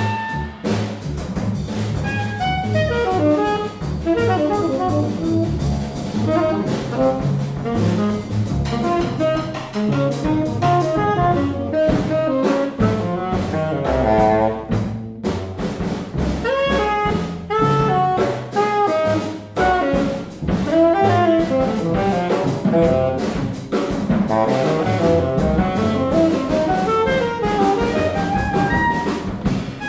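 Contemporary jazz quartet playing live: two saxophones, alto and tenor, playing quick-moving lines over double bass and a busy drum kit.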